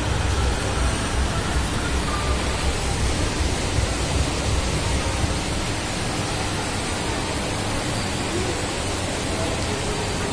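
Steady, loud rushing noise with a fluttering rumble underneath.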